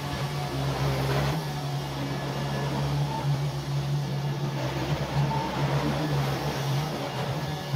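Neato D7 robot vacuum running as it cleans a rug: a steady motor hum with whirring brush and suction noise.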